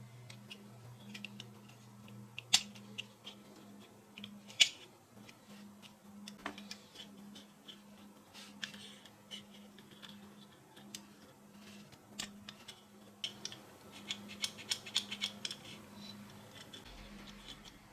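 Scattered light clicks and taps of small parts being handled and fitted, with a quicker run of clicks about three quarters of the way in, over a faint steady hum.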